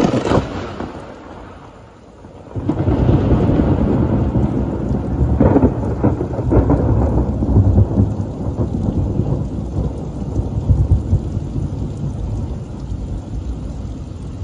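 Thunder from a close lightning strike: a sudden crack at the start that fades over a couple of seconds, then a loud low rolling rumble that sets in about two and a half seconds later, with a couple of sharper cracks inside it, and slowly dies away. Rain falls steadily underneath.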